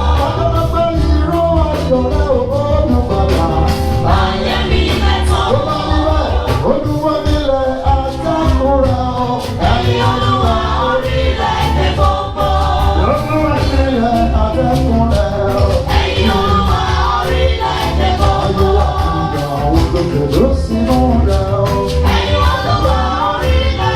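Live Yoruba gospel music: singing with choir voices over a heavy bass and percussion.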